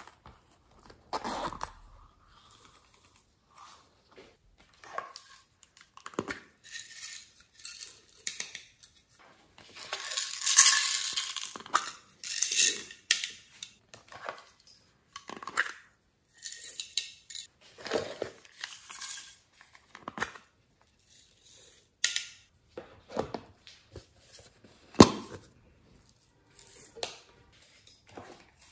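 Glitter, sequins and confetti being shaken and poured onto slime in a glass baking dish, with a longer hissing shower of pouring about ten seconds in, amid the clicks and rattles of small plastic toy containers being handled.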